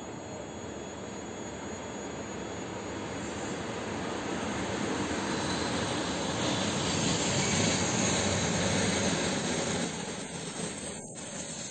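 Suburban electric train running past along the platform, a steady rush of wheels on rails and running gear that grows louder as the cars draw level, peaks about two-thirds through, then drops away near the end.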